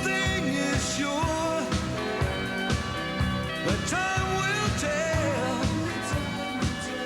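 Pop-rock song with a steady drum beat about twice a second and a gliding melody line over it.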